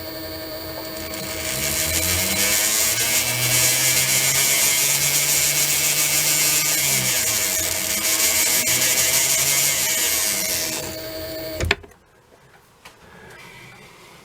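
Small lathe motor running, with a fine stone hissing against the spinning blue-steel pivot wire as it is reduced towards a press fit for the escape wheel. The motor's hum rises and falls, then it is switched off with a click near the end.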